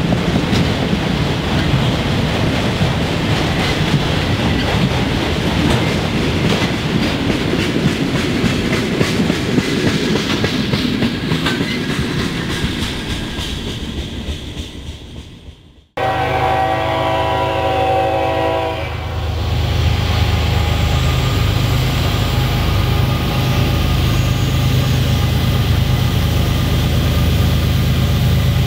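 Freight train's autorack cars rolling past, the wheels clacking over rail joints, fading out about halfway through. Then a locomotive horn sounds one long blast of about three seconds, followed by the steady low rumble of an approaching GE ES44AC diesel locomotive.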